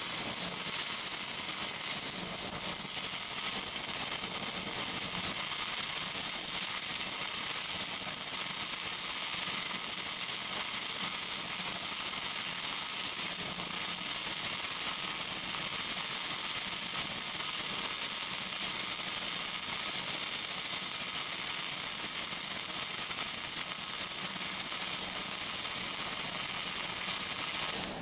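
Electric arc welding a bead on a steel angle joint over ceramic backing: the arc runs as a steady hiss for the whole pass and cuts off suddenly near the end.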